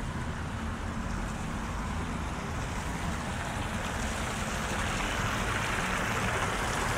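Fountain jets splashing into a stone basin, a steady rush of water that grows louder in the second half as it is approached, over a low background rumble.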